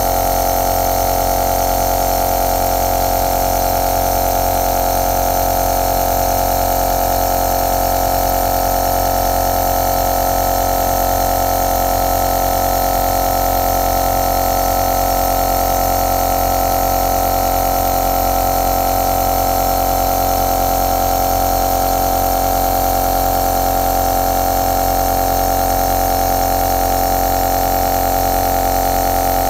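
Compressor nebulizer running steadily: a constant mechanical hum with one unchanging pitch.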